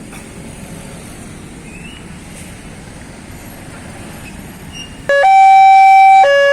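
Steady street traffic noise, then about five seconds in a loud two-tone hi-lo siren starts suddenly, switching between a higher and a lower pitch about once a second.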